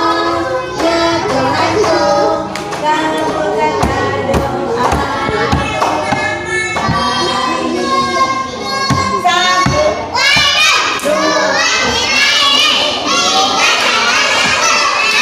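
Young children and a woman singing a song together, with several thumps in the middle. From about ten seconds in, more children's voices join in and the singing grows fuller.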